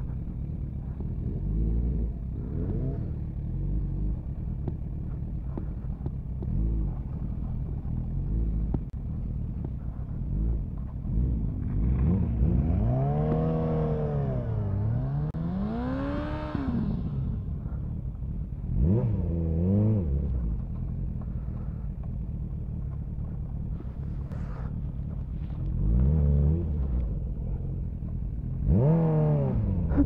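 Small motorcycle's engine running under way, its pitch rising and falling as the throttle is opened and closed, with a long swell of revs about halfway through and shorter ones near the end, over a steady low rumble of wind on the microphone.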